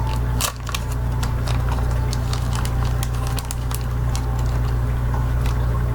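Plastic packaging of a hook pack crackling and clicking as it is handled, over a steady low hum.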